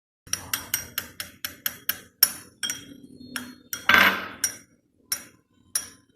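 A utensil beating raw egg in a bowl: a quick run of sharp clicks against the bowl, about four a second, thinning out after about two seconds, with one longer scraping sound about four seconds in.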